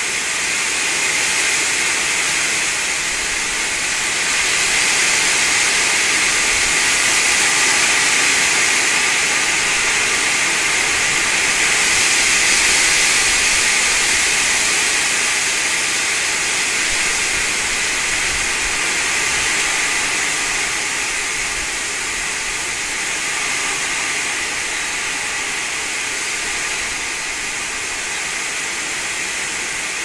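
Storm wind rushing through the garden trees, a loud steady hiss that swells for the first half and eases a little after.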